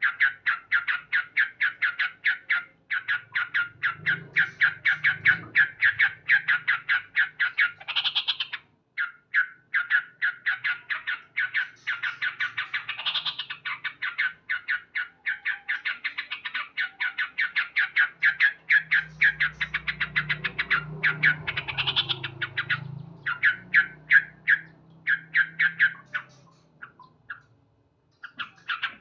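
Male yellow-vented bulbul (trucukan) calling loudly in long runs of fast, sharp repeated 'cuk' notes, about five or six a second, with a couple of brief breaks and sparser notes near the end. It is the agitated calling of a male in breeding condition, challenging a rival.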